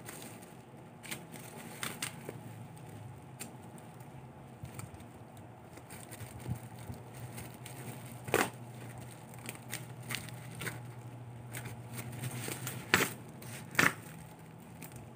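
Plastic packaging and bubble wrap crinkling and crackling as it is unwrapped by hand, with a few sharper crackles a little past halfway and twice near the end.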